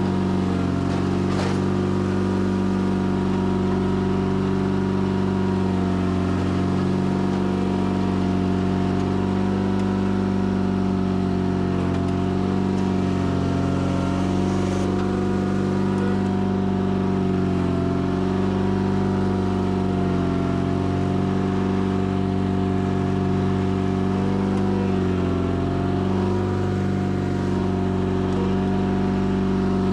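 Sears Craftsman FF24 garden tractor engine running steadily under load while plowing dirt, its pitch wavering slightly and dipping now and then.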